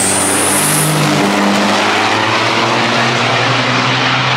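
Two bobtail semi trucks' diesel engines at full throttle, accelerating hard down a drag strip, with a high whine rising over the first second.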